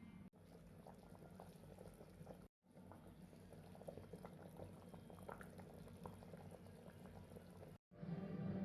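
Chicken curry bubbling in a clay pot: faint, irregular popping and crackling over a low hum, cut off briefly by three edits.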